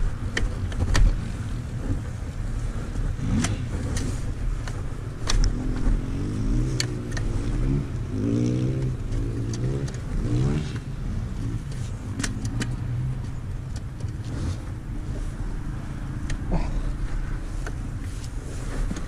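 Yamaha motocross bike's engine running at low revs, the revs rising and falling in waves through the middle, as the bike is worked slowly through deep mud. Sharp clicks and knocks are scattered throughout.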